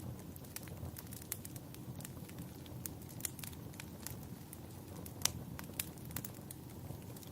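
Wood fire crackling, with irregular sharp pops over a low steady rumble of burning; the loudest pop comes about five seconds in.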